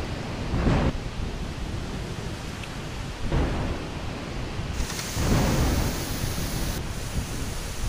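Strong storm wind gusting through palm trees and buffeting the microphone in low rumbling surges, three of them, each about a second long. A steady higher hiss joins about five seconds in.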